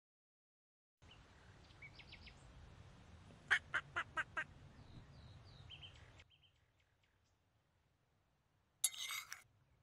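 Outdoor pond ambience in which a duck quacks five times in quick succession, with faint chirps of other birds around it. The background cuts off about six seconds in, and near the end comes a short, loud burst of noise.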